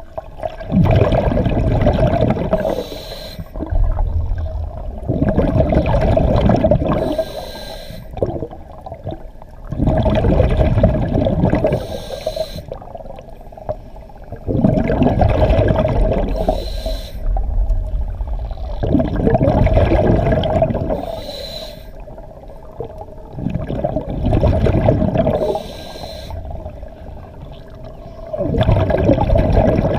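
Scuba diver breathing through a regulator underwater: each breath and rush of exhaled bubbles lasts about two seconds and repeats about every four and a half seconds in a slow, even rhythm.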